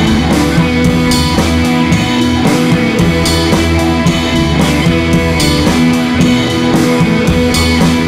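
Rock-style background music with guitar and drums.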